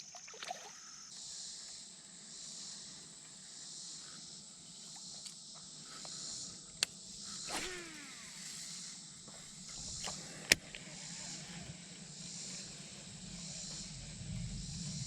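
Steady high-pitched chorus of insects, with a couple of sharp clicks and a brief falling whirr in the middle.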